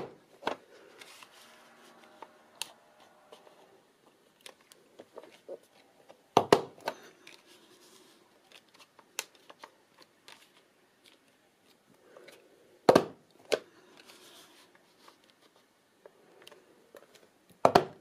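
Envelope punch board punching notches in patterned paper: a sharp snap of the punch each time it is forced down, about every six seconds. Between the snaps the paper rustles faintly as it is slid along to line up the next score line.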